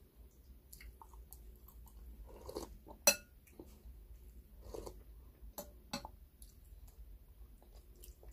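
Close-up eating sounds: chewing, and a metal spoon clinking against a glass soup bowl, with one sharp ringing clink about three seconds in and a few lighter clicks later.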